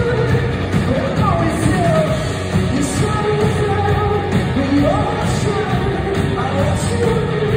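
Rock band playing live through the hall's PA: electric guitars, bass guitar and a drum kit, with a singing voice carrying the melody.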